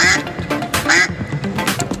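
Music track with a duck's quack repeated in time with a beat, several quacks in a row.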